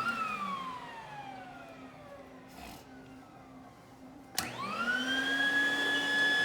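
Electric blower motor of a stuffed-animal stuffing machine. Its whine winds down at the start. Then, a little over four seconds in, it starts again with a click, rises quickly in pitch and holds a steady, loud whine.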